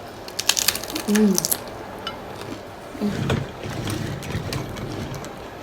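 Eating a taco: sharp crunches of the shell being bitten and chewed in the first second and a half, with a short hummed "mmm" about a second in, then softer chewing.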